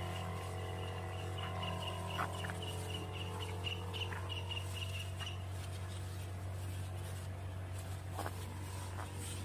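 Steady low hum of a knapsack sprayer running, with the hiss of its spray. A high, rapid chirping repeats through the first five seconds or so.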